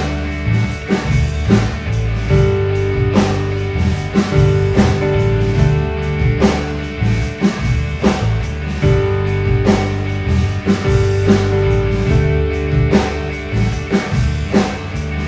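Instrumental break in a garage rock song: electric guitars, bass and drum kit playing a steady beat, with a held guitar note over the rhythm and no vocals.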